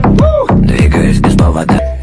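Electronic music with a beatbox-style beat: deep bass hits that fall in pitch, about two a second, and a swooping rising-and-falling vocal sound early on.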